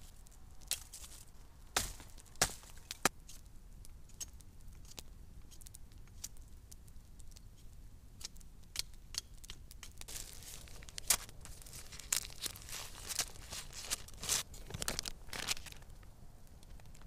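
Pink butcher paper crinkling and tearing as a steak is unwrapped, a dense rustling that starts about ten seconds in. Before that, scattered sharp clicks and snaps.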